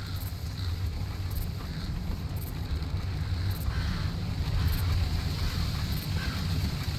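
Outdoor nature ambience: a steady low rumble with a faint high hiss, and a soft high-pitched tick about once a second.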